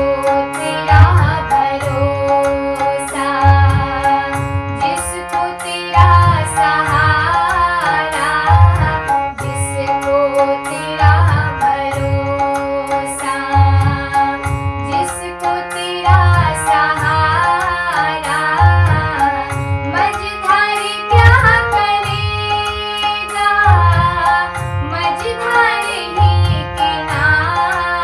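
Hindi devotional song (a Krishna bhajan): a voice singing the melody over tabla and a steady drum beat.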